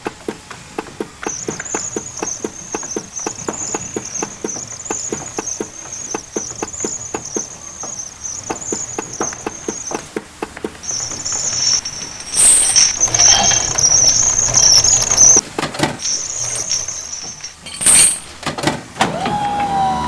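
Lego toy train running on plastic track: its wheels click regularly over the rail joints while a high, wavering wheel squeal goes on, louder in the second half. Several sharp knocks come near the end.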